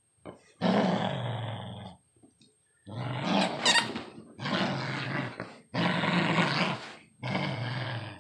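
Puppy growling in play while tugging on a plush toy: about five long, rough growls in a row, each about a second long, with short breaks between.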